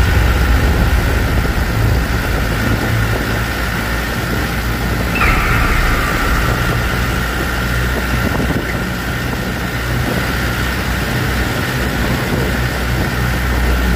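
Vehicle engine and road noise in a road tunnel: a steady low rumble, with a steady higher-pitched whine joining about five seconds in.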